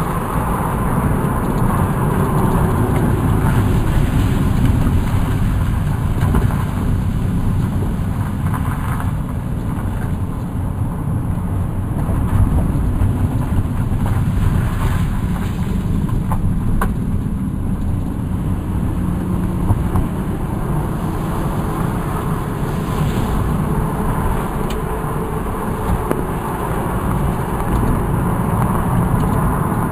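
A car driving at a steady speed, heard from inside the cabin: a steady low rumble of engine and tyres on the road.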